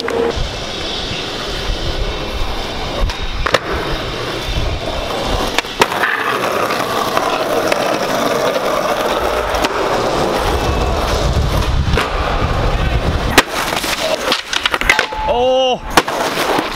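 Skateboard wheels rolling over hard ground, with several sharp clacks of the board popping and landing. A short voice call comes near the end.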